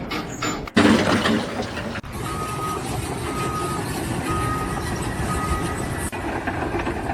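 A heavy vehicle's engine running while its reversing alarm beeps four times, about once a second. This comes after a loud noisy rush of sound.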